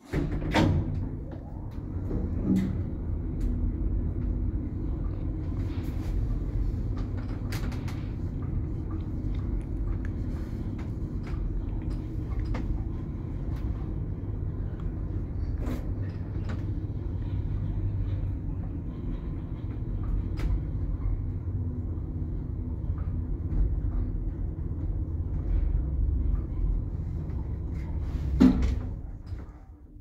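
Old 1991 passenger lift car travelling in its shaft: a steady low rumble with scattered clicks and knocks, ending with a thump near the end as the level falls away.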